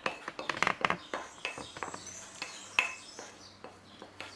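A spoon scraping and tapping against a small plate as spices are knocked off into a pan: a quick run of clicks in the first second, then scattered light taps and one short clink.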